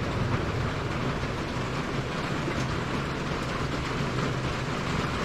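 Steady heavy rain on the shop roof: an even hiss with a low rumble underneath.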